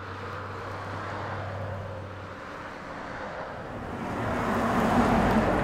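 Road traffic noise: a car approaches and passes, its tyre and engine noise swelling to loudest about five seconds in, then starting to fade.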